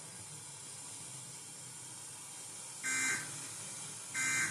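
Emergency Alert System end-of-message data bursts: two short, buzzy bleeps of SAME digital tones about 1.3 s apart, the first about three seconds in and the second near the end, over faint radio hiss. They signal the end of the severe thunderstorm warning broadcast.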